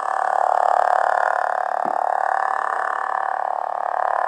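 A budget Yoda toy lightsaber's built-in sound module plays its steady, buzzing blade hum through a small speaker. The hum swells and eases a little.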